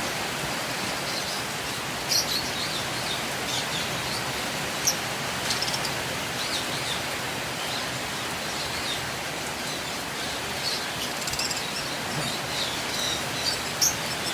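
Lovebirds chirping: scattered short, high calls, a few at a time, over a steady hiss of background noise.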